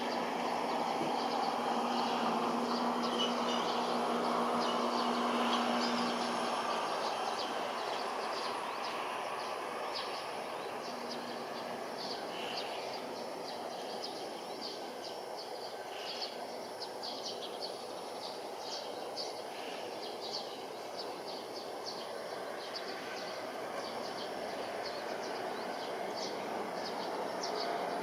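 Jet engine noise from a Boeing KC-767 tanker on its landing approach, heard from a distance: a steady rushing hum with a low drone that fades after about six seconds. Small birds chirp throughout.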